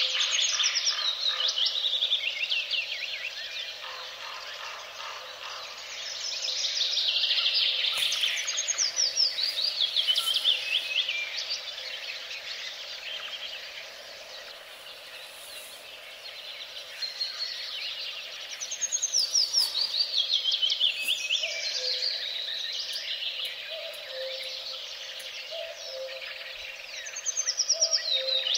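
A songbird singing several times, each song a quick run of notes falling steadily in pitch and lasting two to three seconds, with short pauses between songs.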